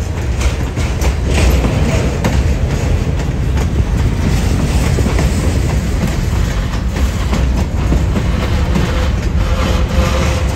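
Freight train of covered hopper and tank cars rolling past close by: a loud, steady rumble of steel wheels on rail, with repeated clacks as the wheel sets go by.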